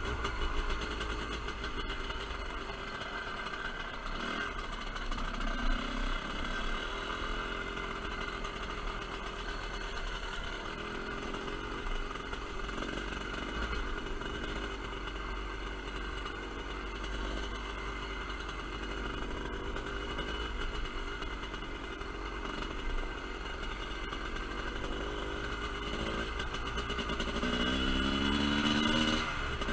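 TM Racing 250cc dirt bike engine running steadily while riding along a dirt track. Near the end it revs up, its pitch rising.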